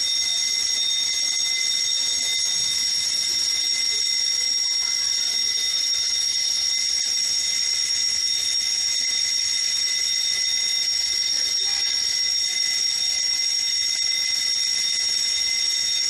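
Fire alarm sounder of a conventional fire detection and alarm system giving one continuous, high-pitched steady tone during a functional test of the system.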